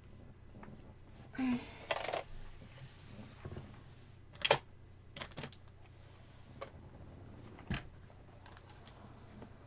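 Small objects being picked up off a cluttered desk and set down again: scattered taps, clicks and knocks of plastic and hard items, with a short scrape about one and a half seconds in and the sharpest click about four and a half seconds in.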